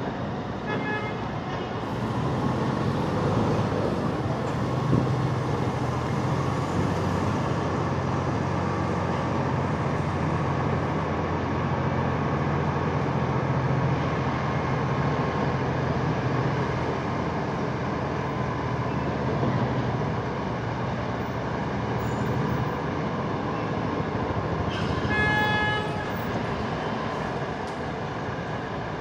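Heavy diesel engines of a Kalmar container forklift and a semi-truck running steadily, the drone growing a little louder about two seconds in. Brief pitched warning signals sound near the start and again about 25 seconds in.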